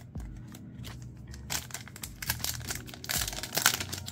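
Crinkling and rustling of a trading-card booster pack and its cards being handled, a few light clicks at first, then busier and louder about halfway through.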